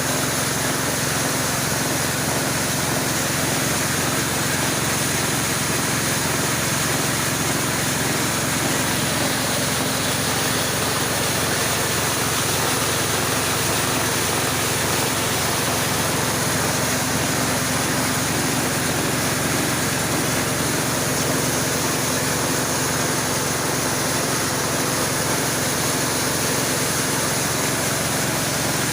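Home-built corn grinding mill running steadily, a constant engine-like machine noise that holds the same speed and level throughout.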